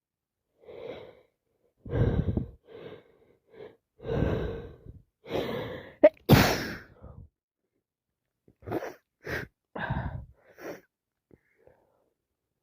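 A person with a cold and allergies breathing in in a run of gasps, building to one loud sneeze about six seconds in, then a few short, sharp breaths.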